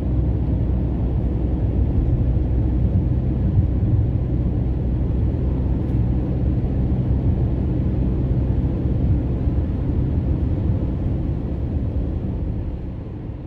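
A car driving at speed on a motorway: a steady low rumble of engine and road noise that begins to fade out near the end.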